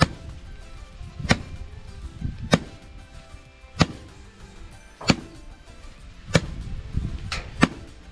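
Dried maize being threshed by hand with sharp strikes, roughly one every second and a quarter, with two close together near the end. Background music plays underneath.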